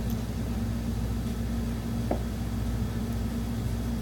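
Steady low electrical hum of a household appliance or blower filling the room, with one brief faint sound about two seconds in.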